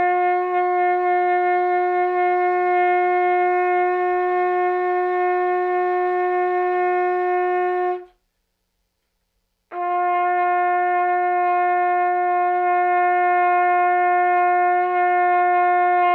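Trumpet holding the same long note twice, about eight seconds each, with a short silence between. The notes are deliberately played a little high on the pitch rather than centred: the first is the extreme case, pinched and tight with no body, and the second is nicer but still not as full as it could be.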